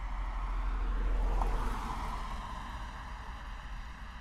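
Road traffic: a vehicle passes by, its noise swelling to a peak about a second and a half in and then fading away, over a steady low rumble of more distant traffic.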